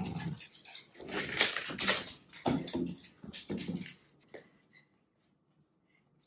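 Cavalier King Charles spaniel growling and barking in play, mixed with knocks and rattles of a plastic takeout container, falling to near silence about four seconds in.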